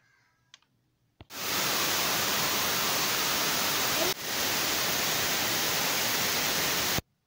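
Loud steady static hiss, like white noise in the audio track. It starts abruptly about a second in, drops out for an instant midway, and cuts off abruptly near the end.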